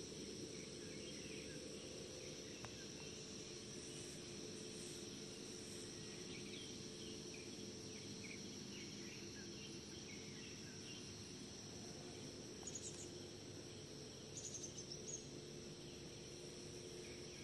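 Rural outdoor ambience: a steady high buzz of insects with scattered short bird chirps. A quick run of louder bird calls comes near the end, all over a low steady hum.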